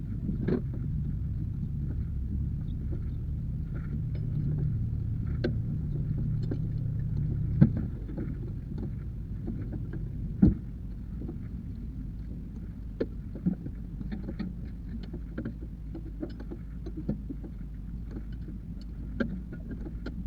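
A steady low engine hum that stops about seven and a half seconds in, with scattered sharp metallic clicks and knocks throughout, the loudest two about 8 and 10 seconds in.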